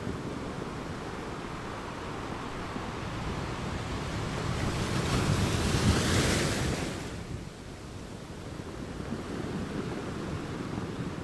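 Steady rushing noise, like surf, that swells and fades about halfway through.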